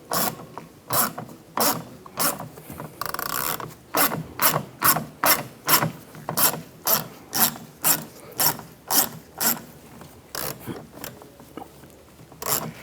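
Hand ratchet with a T20 socket clicking at about two clicks a second as it loosens the door handle's bracket screw. There is a short rub about three seconds in, and the clicks thin out for a couple of seconds near the end.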